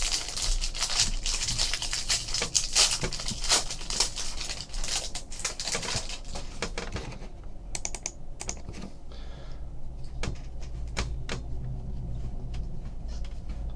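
A stack of chrome trading cards being thumbed through by hand: a rapid run of light clicks and snaps. The clicks grow sparse about halfway through.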